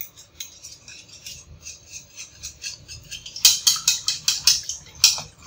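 Hand whisk beating a liquid egg-and-milk custard mixture in a steel bowl: quick rhythmic metal clinks and swishes, about five strokes a second, growing louder a little past halfway.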